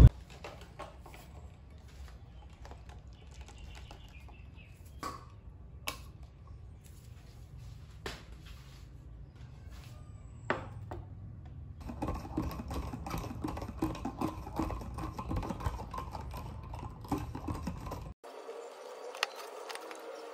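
Small clicks and taps of things being handled and set down on a wooden desk, a few seconds apart. About twelve seconds in they give way to some six seconds of denser crackling and rustling.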